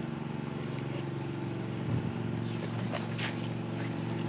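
An engine running steadily, giving a continuous low hum.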